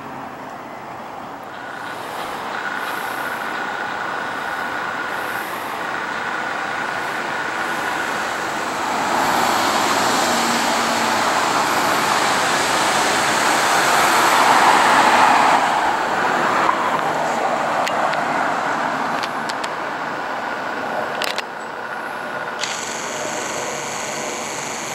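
Outdoor vehicle noise: a steady hum with a thin high whine. It grows louder for several seconds in the middle as something passes, then drops away suddenly, with a sharp click and a hiss near the end.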